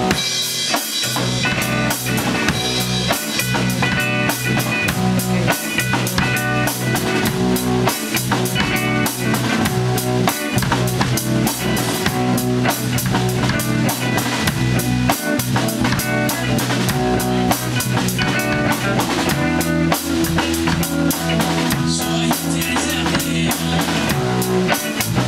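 Blues-rock band playing live without vocals: a drum kit keeps a steady beat of kick, snare and cymbal hits under electric guitar and electric bass. The bass line changes a little past two-thirds of the way through.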